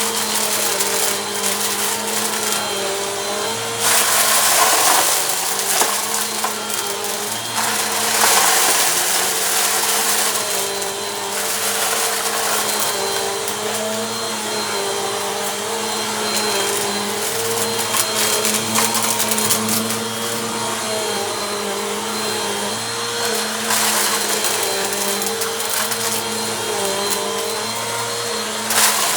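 Bissell Compact vacuum cleaner running on a rug and picking up dirt, a steady motor hum whose pitch wavers slightly as it is pushed back and forth. Louder rushing surges of suction noise come several times, about four seconds in, about eight seconds in, around twenty-four seconds and just before the end.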